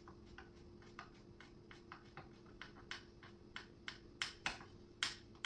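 Irregular light clicks and taps from screws and hardware being handled and driven by hand while a nightstand is assembled, growing louder near the end, over a faint steady hum.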